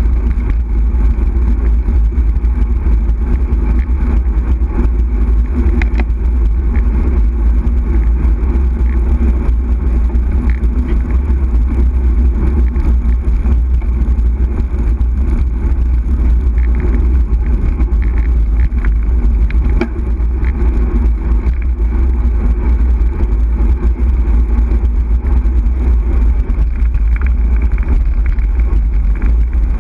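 Steady, loud wind rumble on the microphone of a camera mounted on a moving bicycle, with road noise from the tyres on tarmac mixed in.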